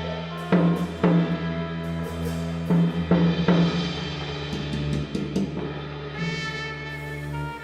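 Live jazz trio playing: a brass horn holds long notes over a sustained double bass note, with several loud drum strikes in the first half that give way to a softer, sustained passage.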